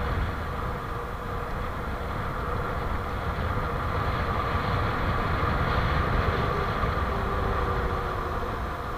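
Bicycle brakes squealing under hard braking on a steep descent, a steady two-note squeal that sags a little in pitch near the end, over wind rushing on the microphone. The brakes are barely holding the bike back.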